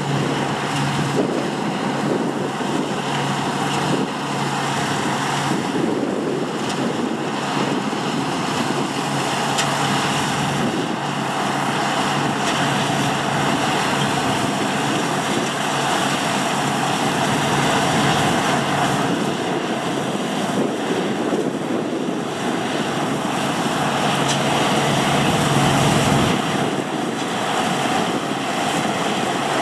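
Heavy farm machinery at harvest running steadily with a low hum, with wind buffeting the microphone.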